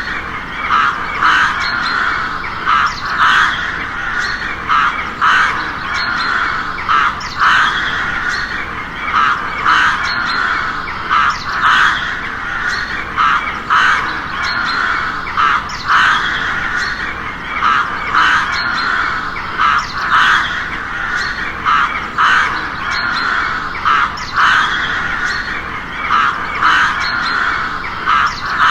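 Crows cawing: a constant chorus of overlapping harsh caws, with individual loud calls breaking out about once or twice a second.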